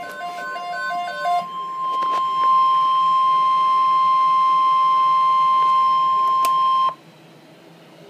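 Weather alert radio sounding the NOAA Weather Radio warning alarm, a loud single steady tone that cuts off suddenly about seven seconds in, signalling that a warning message follows. For the first second and a half a quick beeping alternating between a lower and a higher pitch plays over it.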